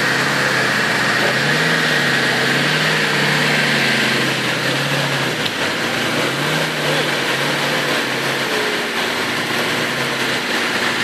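Classic Range Rover's engine running while its front winch hauls it through deep mud, a steady whine over a low engine note that rises and falls slightly.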